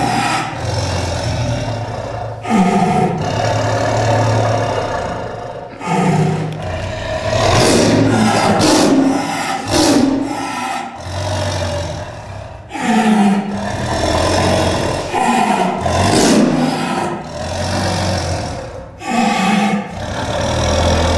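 An angry Bengal tiger giving repeated loud, snarling growl-roars, a fresh one every second or two, each starting sharply and dropping in pitch.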